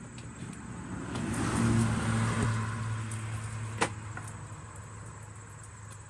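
A motor vehicle passing on a nearby road: its engine hum and road noise swell up about a second in and slowly fade away. A single sharp click sounds partway through.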